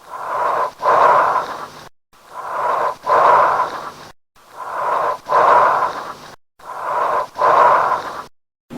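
Recorded bronchial breath sounds: four loud, harsh breath cycles, each a shorter inhale, a brief silent gap, then a louder, longer exhale.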